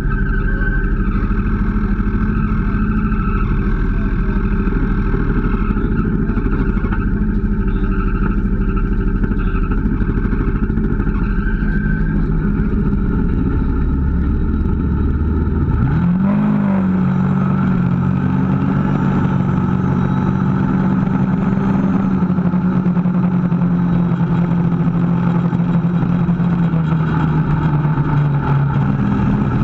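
Kawasaki KVF 650 ATV's V-twin engine running under way. About halfway through, the pitch dips, then climbs and holds steady.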